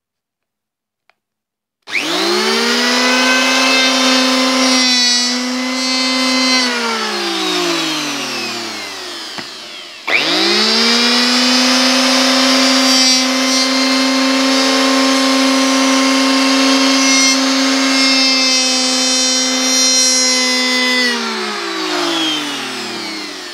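McKeller electric hand planer switched on, its motor and cutter block running up to a steady pitch, then spinning down with falling pitch when switched off. It is started again about ten seconds in, runs steadily, and winds down again near the end.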